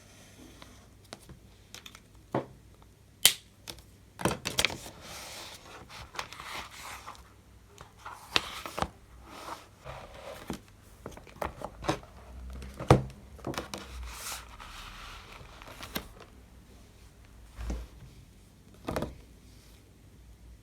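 Crinkling and rustling as something is handled at close range, broken by scattered sharp clicks and light knocks; the loudest click comes about three seconds in and the loudest knock about thirteen seconds in.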